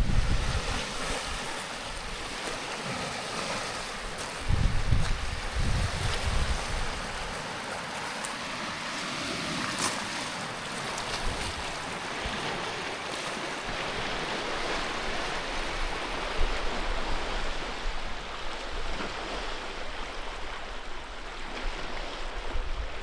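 Strong wind with waves washing against a lake shore, a steady rushing noise. Gusts hit the microphone with louder low rumbles about five seconds in.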